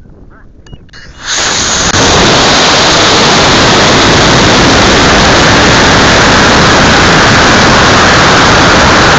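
Model rocket lift-off heard from a camera riding on the rocket: about a second in, a sudden loud rushing noise starts and holds steady, the motor's burn and the rush of air over the climbing rocket.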